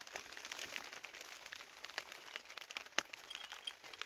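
Faint rustling and crinkling of clothing and bedding as a baby in a cradle is handled, with scattered light clicks and one sharper click about three seconds in.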